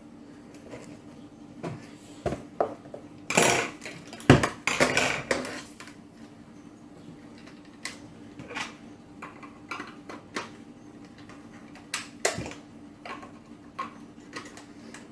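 Kitchen utensils and a mixing bowl being handled: scattered knocks and clicks, with a few louder clattering bursts about three to five seconds in and again near twelve seconds, over a faint steady hum.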